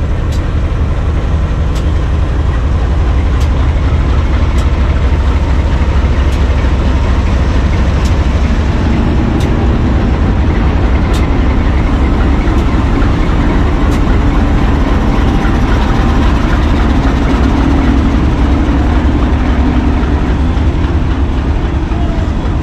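Diesel locomotive engine running with a heavy, steady low rumble as it pulls a passenger train out of the station; its note grows stronger in the second half. Faint sharp ticks come about every second and a half.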